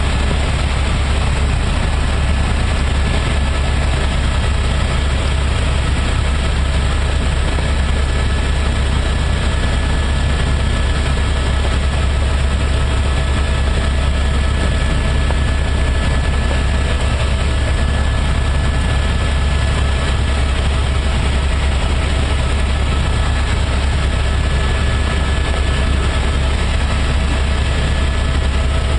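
Helicopter cabin noise in flight: the engine and rotors make a loud, steady drone that is heaviest at the low end, with faint steady whining tones above it.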